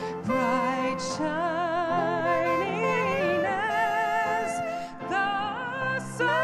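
Congregation singing a hymn, led by singers with strong vibrato, over a sustained keyboard accompaniment. Brief breaths between lines come just after the start and about five seconds in.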